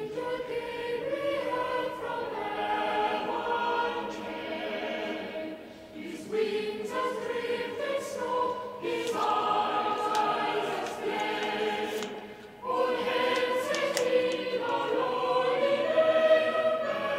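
Choir singing slow, sustained phrases as background music, with short breaks between phrases about 6, 9 and 12 seconds in.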